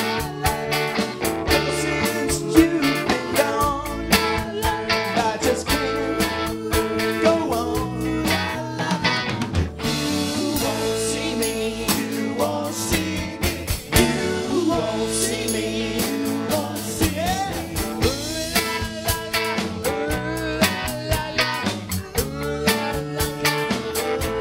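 Live rock band playing, with singing over electric guitar, electric bass and a drum kit.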